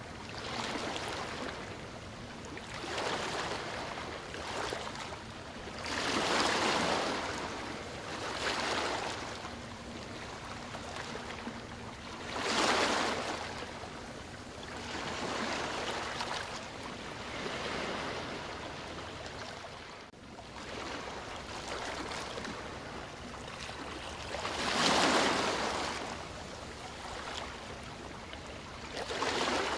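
Outdoor riverbank ambience: a steady rushing noise that swells and fades every few seconds, with louder surges a few times. There is no clear engine or voice.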